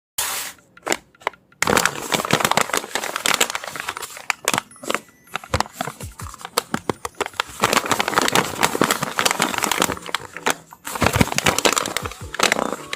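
Crinkling and crackling of a handmade paper blind bag being handled and torn open, in dense runs of rustle broken by sharp crackles and short pauses.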